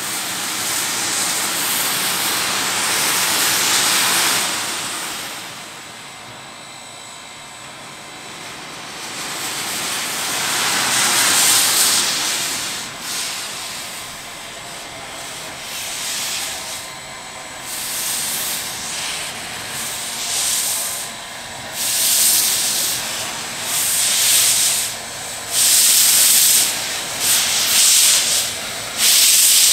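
A 140-year-old 4-4-0 steam locomotive getting under way with its cylinder cocks open, steam hissing hard. In the second half the hiss breaks into separate chuffs of exhaust that come more and more often as it moves off.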